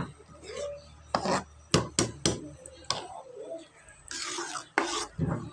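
A spoon stirring thick rice porridge in a metal pot, knocking against the pot several times.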